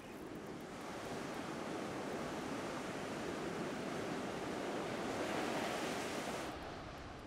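Ocean surf breaking and washing up the beach, a steady rush that swells to its loudest about five seconds in and then falls away.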